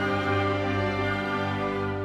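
Background music with long held chords.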